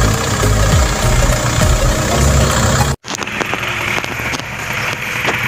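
A compact farm tractor's engine runs hard while the tractor is stuck in a muddy canal, its revs rising and falling. About three seconds in, the engine sound cuts off abruptly and a quieter, noisier background takes over.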